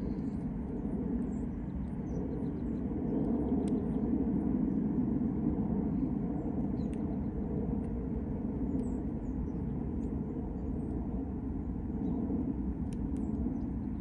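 Steady low outdoor background rumble, with faint high bird chirps now and then.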